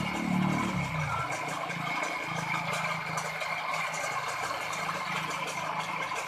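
A small engine-driven sparrow-scaring machine running. Its engine note drops during the first second and then holds steady, over a constant clattering.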